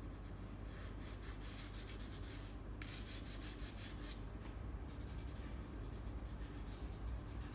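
Black soft pastel rubbed onto dark pastel paper in quick, repeated scratchy strokes, thickest over the first four seconds, then fainter.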